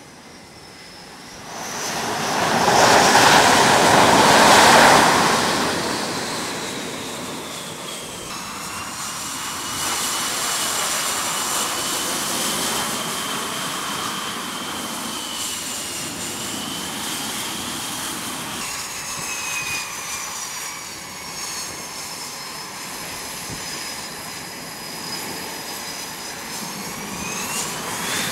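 F/A-18 Super Hornet jets on an aircraft carrier deck: a loud rush of jet noise for a few seconds, about two seconds in, as a jet lands, then the high whine of jet engines at low power while taxiing. The whine wavers in pitch and rises sharply near the end.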